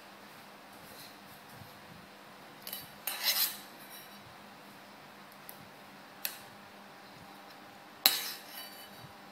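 A spoon scraping and clinking against a stainless steel bowl as a toddler scoops food: a cluster of clatters about three seconds in, a single clink a few seconds later, and a sharp clank near the end with a short rattle after it.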